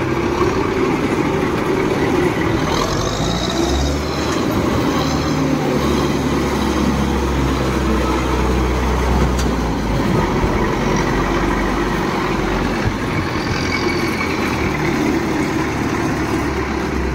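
Diesel engine of an asphalt paver running steadily as the machine moves under its own power, its low rumble swelling for several seconds midway.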